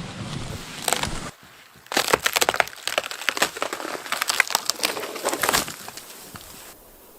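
Dense, irregular crunching of cold snow, starting about two seconds in and dying away near the end, after a brief gust of wind noise at the start.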